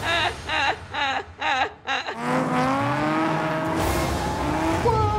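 Drift car engine revving in short repeated pulses, then held in a long rev that rises and falls from about two seconds in, with tire noise over it.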